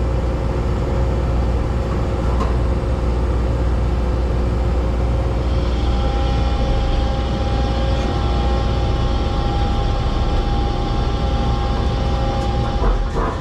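Diesel truck engine, likely the 7.3-litre diesel of a 1999 Ford F-550 work truck, running steadily with a deep rumble. A steady whine joins about six seconds in, and the engine begins to die away at the very end.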